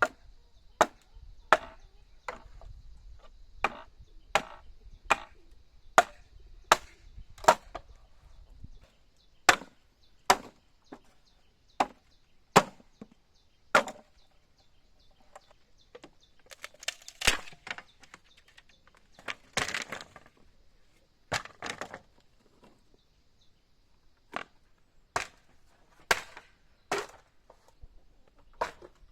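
Repeated chopping blows into wood, sharp strokes about one every 0.7 seconds at first, then slower and more irregular, with two longer, rougher strokes about halfway through.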